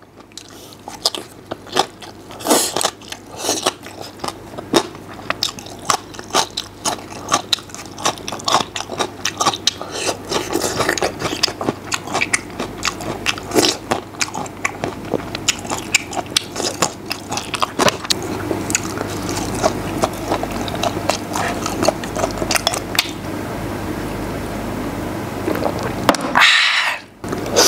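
A man chewing mouthfuls of cold mixed vegetables and braised meat close to a clip-on microphone, with many small sharp clicks of chewing. A brief louder noise comes just before the end.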